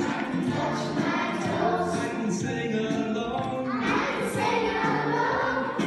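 A group of young children singing together, over a musical accompaniment with steady lower notes.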